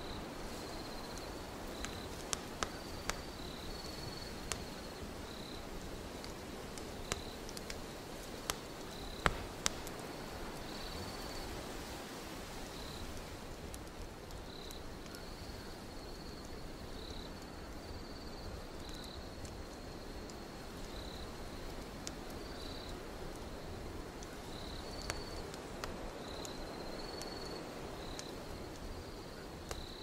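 Wood fire crackling, with scattered sharp pops, over crickets chirping in short repeated high pulses and a steady low rush of wind.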